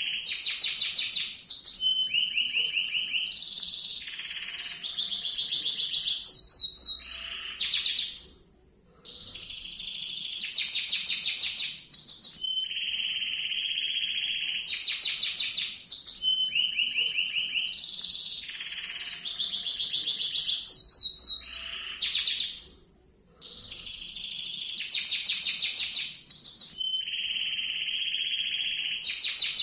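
Domestic canary singing a long rolling song: runs of rapid repeated notes and buzzy trills, with two short breaks about a third and three-quarters of the way through.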